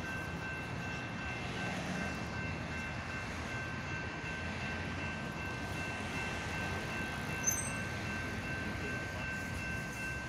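Railway level crossing warning bells ringing steadily as a boom gate lowers, signalling an approaching train. The two-tone ringing sits over a low, even rumble of traffic, with a short high chirp about seven and a half seconds in.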